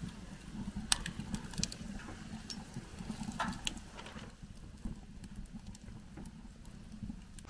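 Wood fire crackling in a small steel camp stove with its door open: irregular pops and snaps, the sharpest about a second in, over a low steady rumble.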